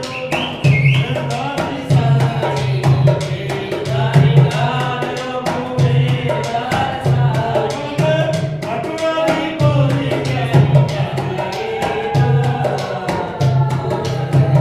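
Rajasthani folk music accompanying a kathputli string-puppet show: a hand drum beats a steady rhythm under a singing voice.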